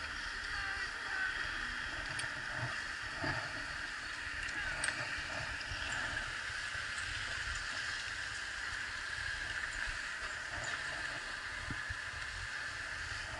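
Steady hiss of sliding over packed snow on a ski slope, with wind rumbling on the moving action camera's microphone.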